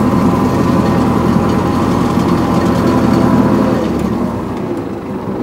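Zetor 7011 tractor's four-cylinder diesel engine running steadily under load, heard from inside the cab. About four seconds in, the engine note drops and gets quieter.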